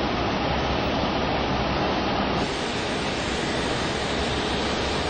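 Steady rushing noise inside an Airbus A380 cockpit as it taxis after landing, from the airflow and the running engines.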